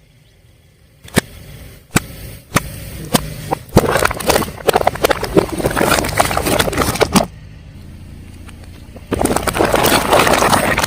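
A car tyre rolling over and crushing crunchy objects: a few sharp cracks, then about three seconds of dense crunching and crackling. After a quieter stretch, a second burst of crunching comes near the end and cuts off suddenly.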